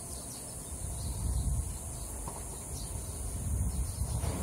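Insects droning steadily at a high pitch, over a low uneven rumble.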